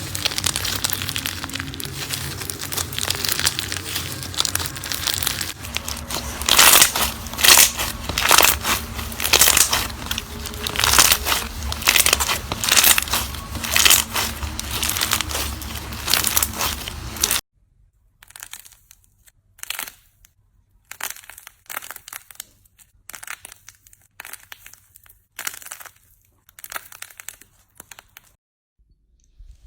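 Slime being squished and pressed by hand, giving a dense run of crackling and popping. About seventeen seconds in it drops abruptly to a quieter stretch of scattered crackles.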